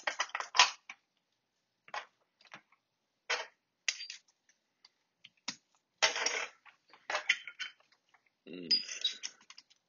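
Small metal hot-air rework nozzles clinking and tapping as one is picked out and fitted onto a hot-air rework gun: scattered separate metallic clicks, with a brief hum from a person near the end.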